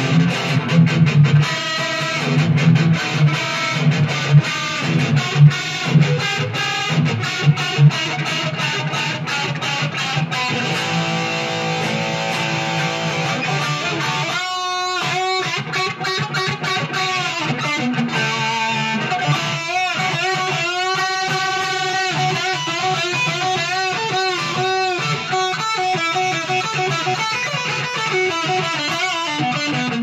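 Junior by K-Van L200 Les Paul-style electric guitar played amplified. It opens with a picked low riff with sharp note attacks, then from about halfway turns to a lead line with bent notes and wide vibrato.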